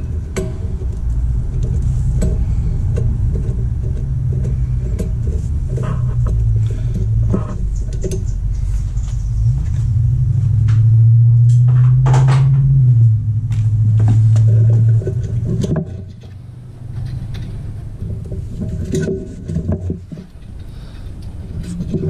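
A steady low rumble, with a stronger hum swelling in for a few seconds in the middle and then dropping away, over scattered light clicks and taps of a screwdriver and fingers working on a compressor pressure switch's wiring terminals.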